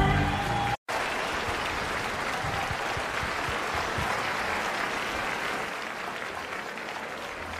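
Audience applause, easing off slightly toward the end. Just before it, the last note of a song dies away and the sound cuts out briefly.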